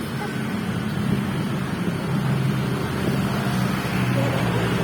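Steady low hum of an engine running, with a noisy rumble behind it.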